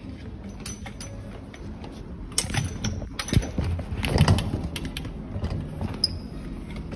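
Irregular knocks and rattles over a low rumble, loudest a little past the middle, as a sliding elevator door closes on a person entering the car.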